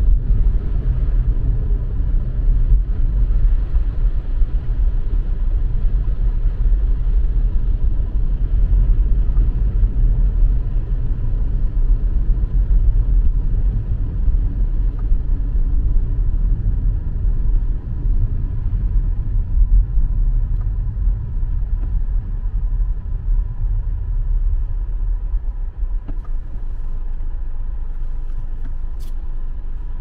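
Car driving on a highway, heard from inside: a steady low rumble of tyres and engine, with a single short click near the end.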